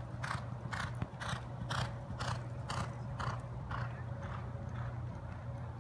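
Thoroughbred racehorse galloping on a dirt track: rhythmic hoofbeats about two a second, growing fainter over the last couple of seconds as the horse moves away, over a low steady hum.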